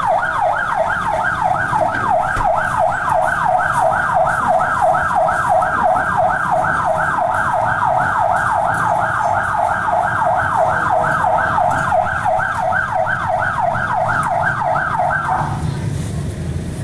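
Electronic police siren in yelp mode: a fast wail sweeping up and down about four times a second. It cuts off near the end, leaving a low traffic rumble.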